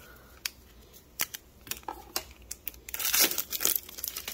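Foil wrapper of a Pokémon booster pack being torn open and crinkled: scattered sharp crackles at first, then a denser, louder stretch of crinkling about three seconds in.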